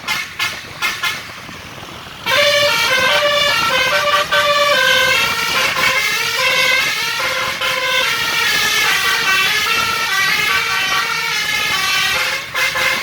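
A tour bus's basuri musical air horn playing a fast telolet melody of short notes stepping up and down. It gives a few short toots, pauses briefly, then plays the tune continuously from about two seconds in until near the end.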